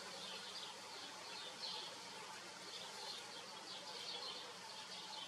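Faint outdoor ambience: short, high chirps repeating irregularly over a steady hiss.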